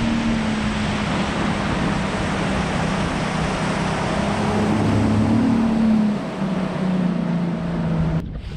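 Outboard motor of a bass boat running at speed, its engine note under a heavy rush of wind and water past the mic; the pitch dips lower about six seconds in, and the sound cuts off suddenly near the end.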